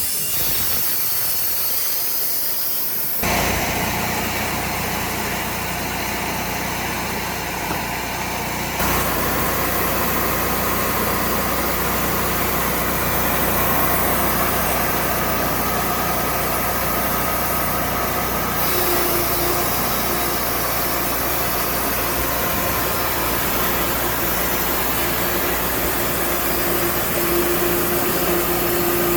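Engine of a portable band sawmill running steadily, its sound changing abruptly three times. A steady whine is added in the last third.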